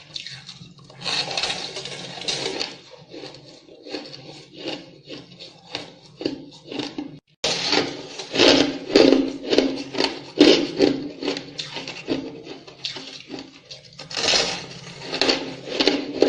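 Ice being bitten and chewed close to the microphone: rapid, irregular crunching, loudest in the second half, with a brief sudden break about seven seconds in.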